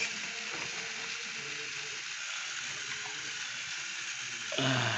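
Steady background hiss, with a few faint clicks and knocks of plastic toy cars being handled and set into a cardboard box. A man's voice begins counting near the end.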